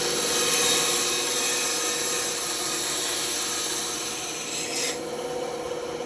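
Band saw cutting through wood: a loud hiss of the blade in the cut over the steady hum of the running machine, easing off about five seconds in as the cut stops.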